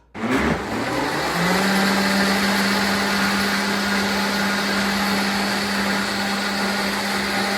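Blender motor puréeing cooked potato and leek soup: it spins up with a rising pitch over the first second and a half, then runs at a steady pitch with a rough whirring of the liquid.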